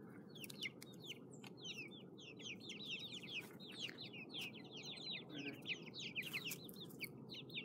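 Young chicks peeping nonstop: many short, high, falling peeps overlapping in a rapid stream.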